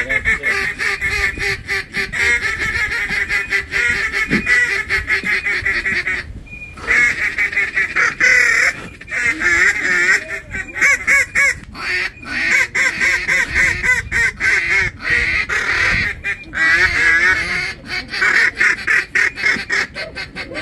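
Duck and goose calling: dense quacking and honking, many calls in quick succession, with a brief break a little over six seconds in.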